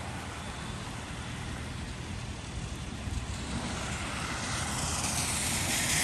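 Swollen creek floodwater rushing steadily with a low rumble, the rush growing louder and brighter over the second half.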